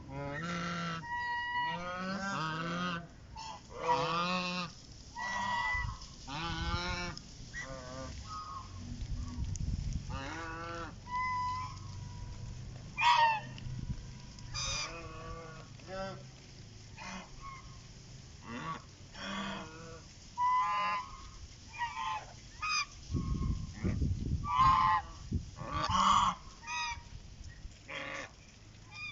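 Birds calling: a long run of short pitched calls, one after another and often overlapping, with brief gaps between. A low rumble comes in twice, about a third of the way through and again about two-thirds through.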